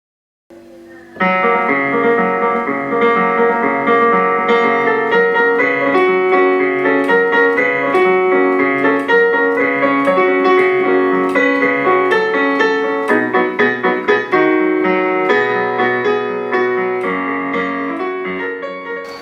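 Piano or electric-piano music with held chords and a melody picked out above them, starting about a second in and fading near the end.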